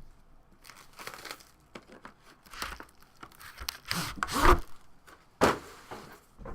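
Plastic shrink wrap being torn and crinkled off a sealed trading-card box, in several short rips, the loudest near the end.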